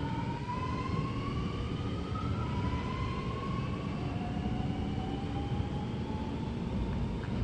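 Alstom Metropolis metro train accelerating away, its traction motors giving a whine that climbs in pitch several times in steps over a low rumble, the whine fading out near the end.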